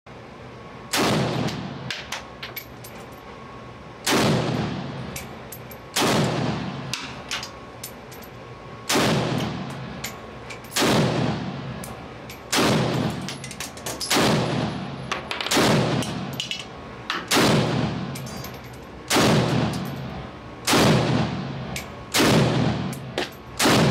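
Century Arms Micro Draco AK pistol in 7.62x39 firing single shots at a slow, deliberate pace: about thirteen shots, one to three seconds apart. Each shot rings out in a long echo off the walls of an indoor shooting range.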